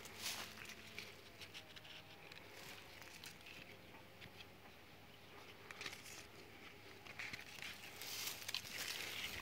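Faint rustling and crackling of walnut leaves and twigs being handled close to the microphone, with scattered light clicks that pick up near the end.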